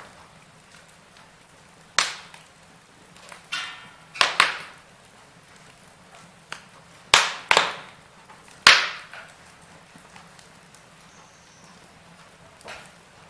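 Wood fire crackling in a fireplace: sharp pops and snaps spaced a second or more apart over a faint steady background.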